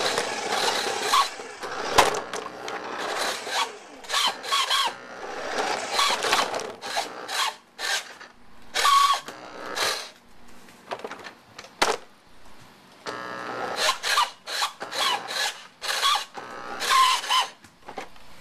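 Toy remote-control car's small electric motor whirring in repeated stop-start bursts as it is driven, the car running on a broken wheel held on with tape.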